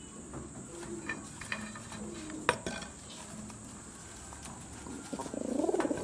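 English Trumpeter pigeons cooing low in a wire cage, with a sharp click about halfway through and a louder coo near the end.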